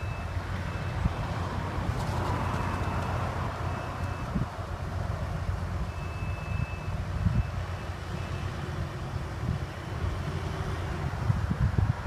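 Heavy equipment engine running steadily, with a high-pitched warning alarm beeping on and off, one longer beep about halfway through. Wind buffets the microphone.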